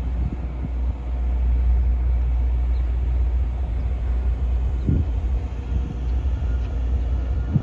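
Steady low rumble from the generator that keeps the parked rail inspection car powered, with wind buffeting the microphone and a single low thump about five seconds in.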